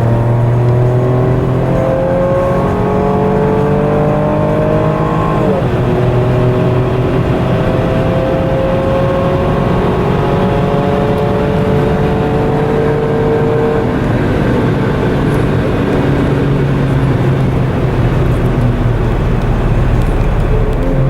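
2018 Holden Commodore's V6 engine accelerating hard out of the last corner onto the straight, heard from inside the car. The revs climb steadily, then drop sharply at an upshift about five and a half seconds in, then climb again more slowly until about fourteen seconds in, after which the engine note levels off.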